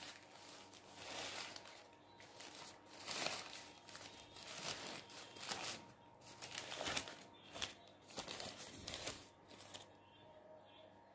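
Paper burger wrapper crinkling and rustling in irregular bursts as it is unfolded by hand, dying away near the end.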